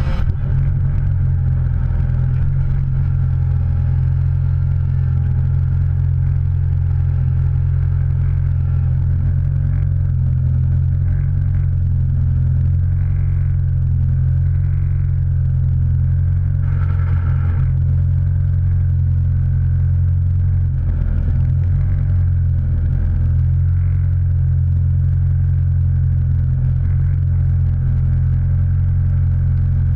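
A vehicle's engine running steadily at an unchanging pitch, a constant low drone, with a brief faint higher sound about 17 seconds in.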